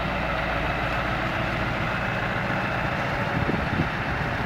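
Heavy diesel engine of a tow truck running steadily at low speed while it pulls a tipper truck on its underlift.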